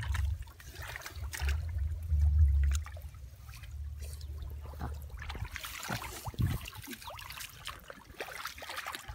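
Muddy water trickling and splashing as it is scooped out around a crab hole, under a low rumbling in the first few seconds.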